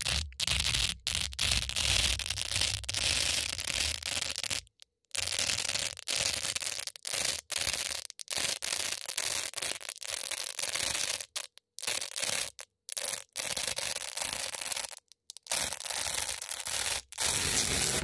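Hook-and-loop (Velcro) tape ripping: a red loop strip peeled from a black hook strip, giving a crunchy, crackling rip close to the microphone. It comes in a run of bursts, each broken off sharply by a short dead gap, about a dozen times.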